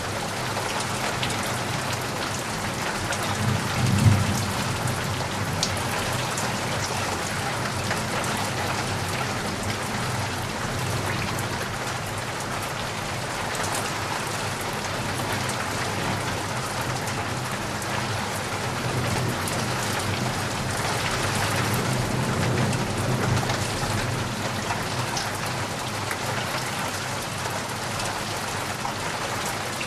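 Steady rain pattering against a window, with low rumbles of thunder: a short, sharper one about four seconds in and a longer, rolling one around two-thirds of the way through.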